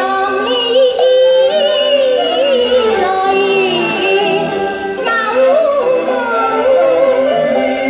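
Recorded music played back on a Jensen JTA-230 stereo turntable: a solo voice sings a wavering, ornamented melody over accompanying instruments.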